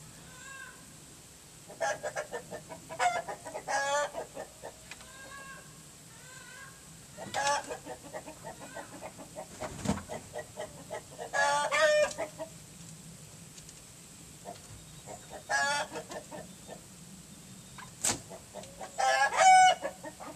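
Chickens calling in repeated bursts of clucks and squawks, one burst every few seconds, with the loudest burst near the end. A single sharp click sounds shortly before the last burst.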